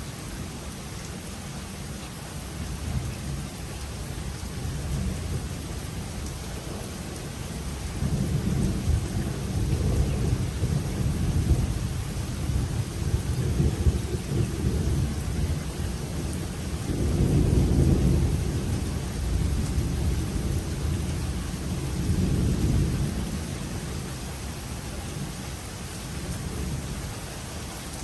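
Steady rain with thunder rumbling through it. About eight seconds in a deep rolling rumble builds and swells several times, loudest about two-thirds of the way through, then fades back to just rain near the end.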